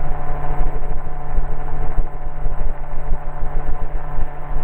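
MTOsport autogyro's engine and rotor running steadily in the open cockpit during the climb after takeoff: a constant pitched drone over a low, uneven throb.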